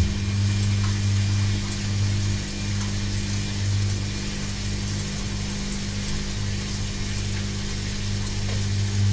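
Washing machine running: a steady low motor hum that swells and fades unevenly, over a soft hiss.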